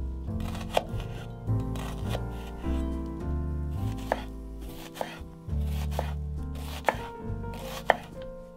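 A knife chopping on a cutting board in sharp, separate strokes a second or so apart, over background music with a steady bass line.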